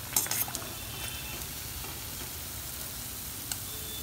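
Breaded potato tikki deep-frying in hot oil in a steel kadai, a steady sizzle. A brief clatter near the start, as the slotted steel ladle works in the pan.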